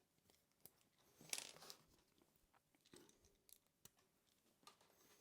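Faint handling noises while working on a laptop: scattered small clicks of plastic parts, with a short crunchy scrape about a second in.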